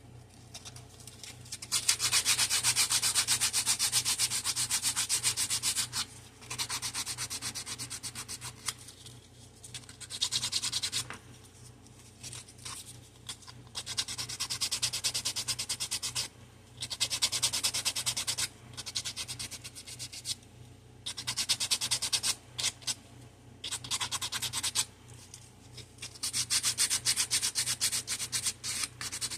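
Sandpaper rubbing on the bottoms of tic-tac-toe pieces, in spurts of a few seconds with short pauses between.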